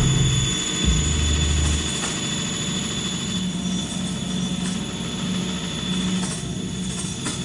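Steady, dense machine-like noise drone with low hums and a thin high whistling tone, without a clear rhythm.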